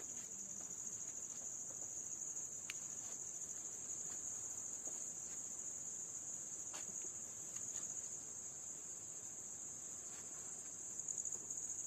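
A steady, high-pitched insect chorus, with a few faint clicks.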